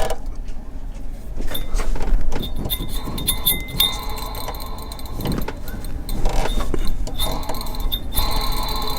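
Precision GEN2 PT6062 turbocharger's compressor wheel being spun by hand, giving a light metallic ringing with scattered ticks that come and go. The owner is checking the rebuilt turbo for a scratching noise of unknown cause.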